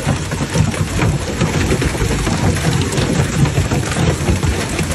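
Hail and heavy rain pelting parked cars and pavement: a dense, continuous patter of many small impacts over a loud downpour, with a steady low rumble underneath.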